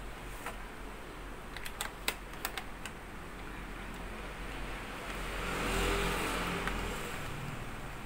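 Small sharp clicks and taps of a screwdriver working the screws out of a laptop's plastic underside, mostly in the first three seconds. About five seconds in, a rushing noise with a low hum swells, peaks about six seconds in and fades away.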